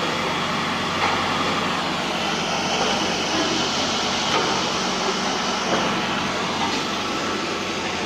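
Road roller's engine running steadily.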